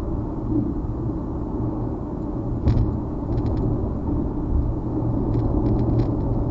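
Steady low road and engine rumble of a car driving, heard inside the cabin through a dash cam's microphone, with a few light clicks.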